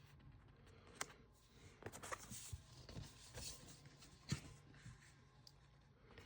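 Faint handling of collectible art cards: soft rustling, with two sharp clicks, one about a second in and another past four seconds.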